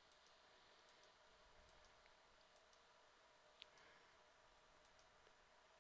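Near silence with faint, scattered clicks of a computer mouse as results are entered into an app, one a little louder about three and a half seconds in.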